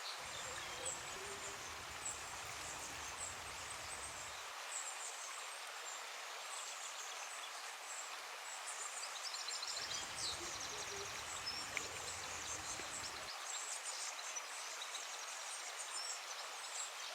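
Outdoor ambience: a steady background hiss with repeated high-pitched chirps and trills from small animals. A low rumble drops out after about four seconds, comes back for a few seconds around the middle, then drops out again.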